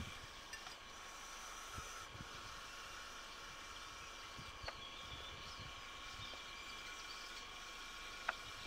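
Faint steady background hiss with a few thin steady whining tones, like camcorder recording noise, broken by two faint clicks, one about halfway through and one near the end.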